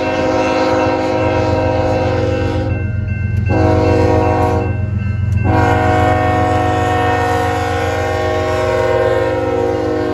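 Union Pacific diesel freight locomotive sounding its multi-note air horn in three blasts: a long one, a short one, then a long held one. Beneath the horn runs the low, steady rumble of the locomotive's engine as it rolls past.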